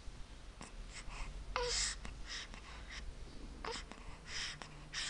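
Young baby's quiet vocal sounds: a short high coo about one and a half seconds in and another about two seconds later, among soft breathy noises.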